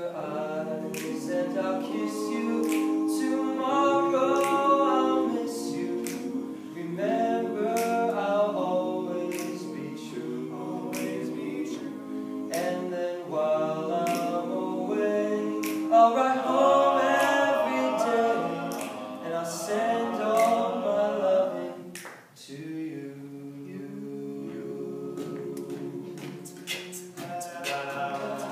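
Male a cappella group of five singing in close harmony without instruments, with sharp clicks keeping the beat. About 22 seconds in the sound dips and goes on in a quieter, lower passage.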